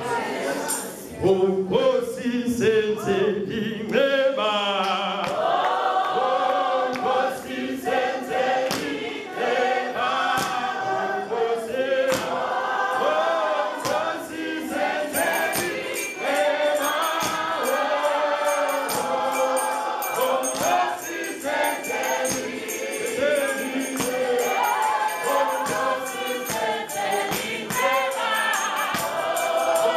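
Gospel song led by a man's voice through a handheld microphone, with the congregation singing along as a choir. Rhythmic hand claps run through it, and from about halfway a shaken jingle, like a tambourine, joins in.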